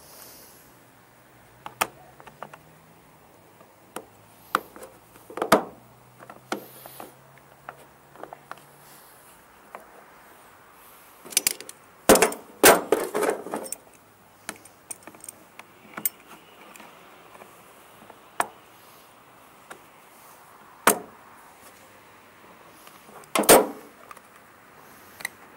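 Hand tools and parts being handled while a part is forced into place: scattered sharp metallic clinks and knocks, a quick clatter of several in the middle, then single clicks spaced a few seconds apart.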